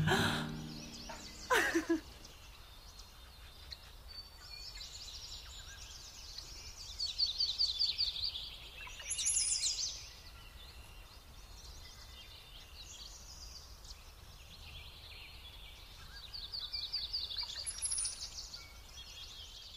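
Birds singing: repeated high trills and chirps, loudest about seven to ten seconds in and again near the end, over a faint steady hiss. About a second and a half in, a brief loud sound glides quickly downward in pitch.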